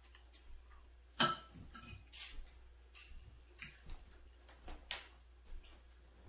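Metal fork clicking and scraping against a dinner plate several times, the sharpest click about a second in.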